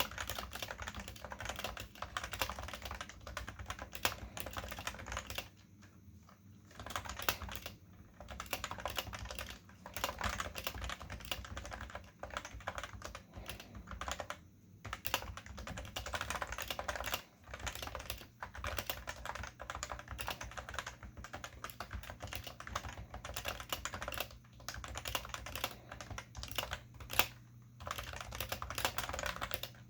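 Continuous fast typing on a Cooler Master Novatouch keyboard with Topre switches, a dense stream of keystrokes broken by a few brief pauses.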